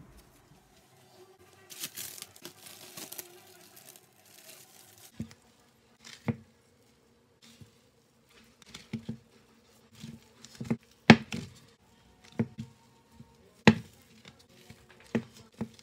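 A few seconds of rustling and crinkling, then sticky sourdough dough being stretched and folded by hand in a bowl: a run of irregular wet slaps and knocks.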